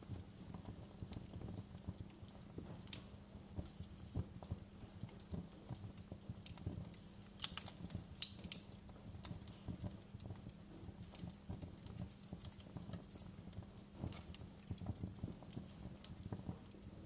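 Wood fire burning in a fireplace, crackling with irregular pops over a low steady rumble. The sharpest pops come about three seconds in and again around seven to eight seconds in.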